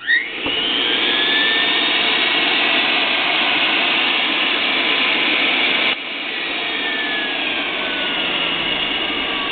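Dumore Series 44 tool post grinder's quarter-horsepower 115-volt electric motor switched on, spinning up with a quickly rising whine and running steadily at full speed. About six seconds in it is switched off, and the whine falls steadily in pitch as the motor coasts down.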